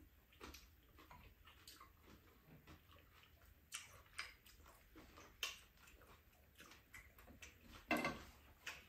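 Faint, scattered clicks and taps of spoons against bowls while two people eat quietly, with a slightly louder one near the end.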